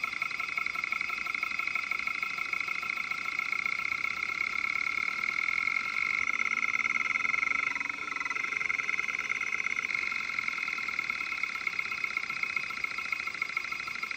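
Kalok KL-320 MFM hard drive running with its cover off, making a continuous fast buzzing rattle as its head arm seeks back and forth, with a short change in tone a little past the middle. The drive is badly damaged, with a broken head and its top arm cut off, and is running on its three remaining heads.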